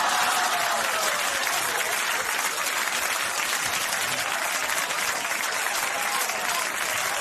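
Studio audience applauding, slightly louder at the start and then holding steady.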